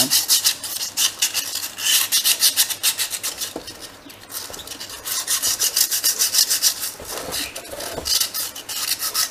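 Emery paper rubbed in quick back-and-forth strokes around the inside of a Yamaha FZ V2.0's rear brake drum, scuffing the smooth drum surface rough so the new brake shoes will grip. A rapid, even rasping of about five or six strokes a second, easing off twice, briefly, about a third of the way in and again near the end.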